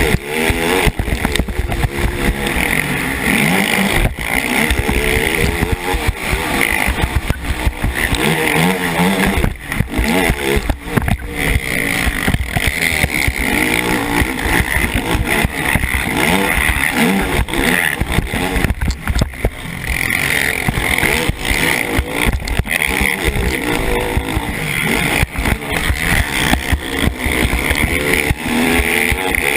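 KTM 450 SX racing quad's single-cylinder four-stroke engine revving up and down hard as it races the track, with a few brief drops in the engine note.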